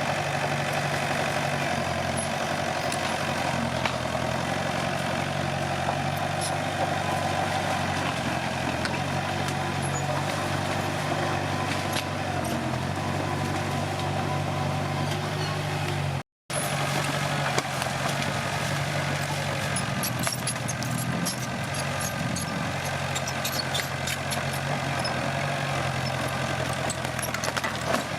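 Komatsu D21P bulldozer's diesel engine running steadily under work. The sound cuts out for a moment about 16 seconds in, after which scattered sharp clicks and crackles come over the engine.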